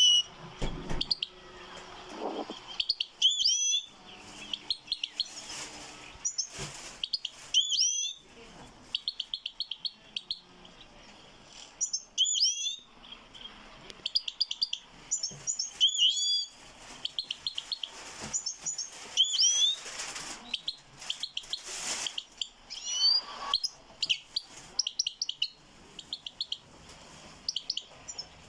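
European goldfinch singing: a long, twittering song of sweeping chirps mixed with fast trilled runs, broken by short pauses.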